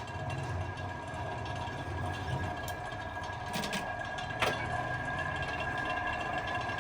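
A workshop machine's electric motor running steadily, with a constant whine over a low hum. A few sharp clicks come through, the clearest about four seconds in.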